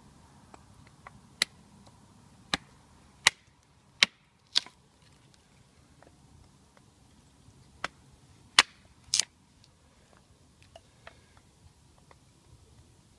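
Firewood being chopped and broken up for kindling: sharp, irregular wooden cracks, about eight loud strikes in two clusters, with fainter ticks between them.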